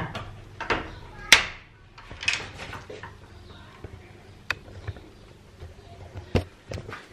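An interior door's lever handle pressed and its latch clicking as the door is eased open, with a few soft knocks and clicks; the sharpest click comes about a second in and another near the end.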